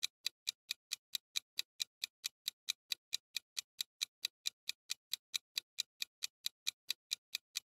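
Countdown-timer ticking sound effect: a steady run of short, even clock ticks, about five a second.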